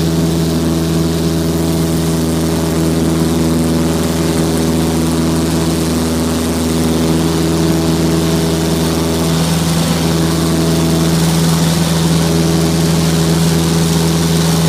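Cessna Skyhawk's piston engine and propeller running with a steady drone, heard inside the cabin in flight. A few of the tones shift slightly about seven to ten seconds in.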